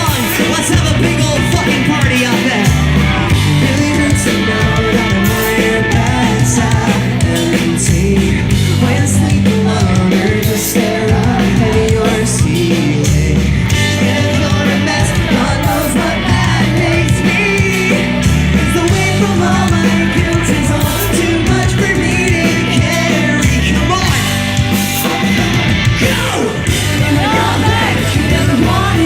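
Live pop-punk band playing a song at full volume: drums and band with a lead vocalist singing over them.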